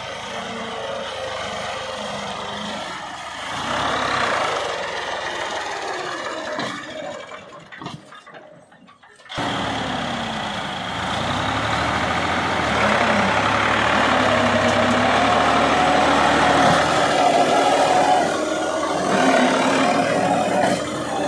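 Turbocharged Massey Ferguson tractor diesel engine working hard to pull a heavily loaded trolley through mud, its pitch rising and falling with the throttle. The sound drops away briefly around the middle, then comes back louder.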